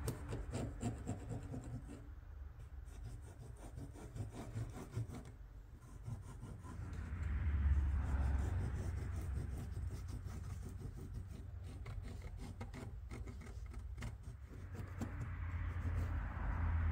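Marker and pen tips scratching along template edges on leather, with hands rubbing and sliding the leather and templates over a wooden bench. The rubbing swells louder twice, about seven seconds in and again near the end.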